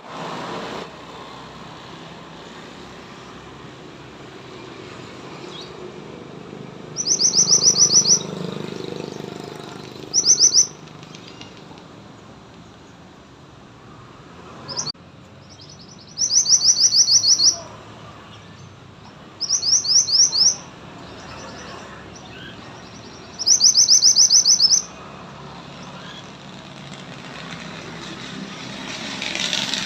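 Mantenan, a small songbird kept by Indonesian bird-keepers, singing short high trills, each a fast run of notes lasting one to two seconds, five times with pauses of a few seconds between, a sixth beginning at the very end, over faint low background noise.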